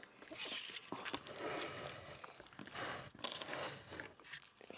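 Foil wrapper of a Kinder Surprise chocolate egg crinkling as it is peeled off by hand, in an irregular run of small crackles.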